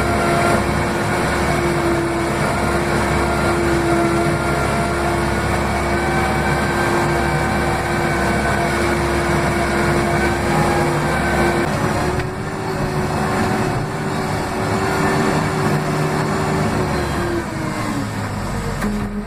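Case 580M backhoe loader's diesel engine running hard at a steady high throttle, heard close up from the cab. Near the end the revs fall away.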